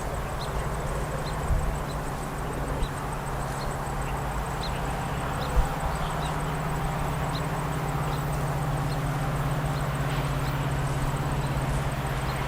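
GE/EMD WDP4D diesel-electric locomotive's two-stroke V16 engine running, a steady low drone that rises slightly in pitch about halfway through. There is a dull thump about five and a half seconds in.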